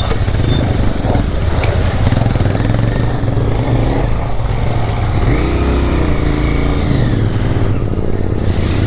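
Royal Enfield Interceptor 650's parallel-twin engine running under throttle while riding through a deep, sandy water crossing, under a steady rushing noise. The engine pitch rises and falls about halfway through as the rider works the throttle.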